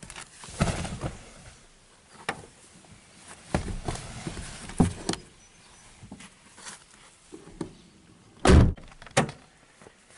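Scattered knocks and rustling at a car's open door as a person leans in and moves away, then a loud thud about eight and a half seconds in, followed by a smaller knock.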